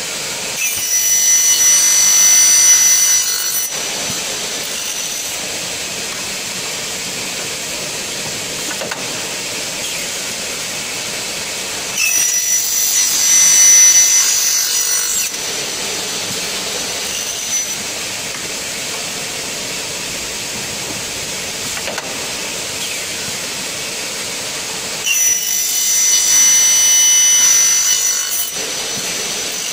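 Saw blade of a double-head aluminium cutting machine with a 3 kW motor, making three cuts through a thin aluminium C-section profile. Each cut lasts about three seconds and gives a high-pitched whine as the blade goes through the metal. The machine runs steadily between cuts.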